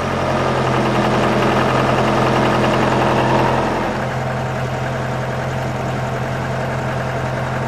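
Boat's diesel engine running under throttle during low-speed manoeuvring. It runs a little harder for the first three and a half seconds, then settles back to a steady, lower run.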